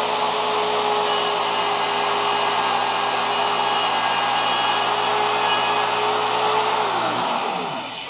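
A Porter-Cable router running at full speed with a steady high whine, its bit cutting a radius profile into a wooden sanding drum as the router is slid along it.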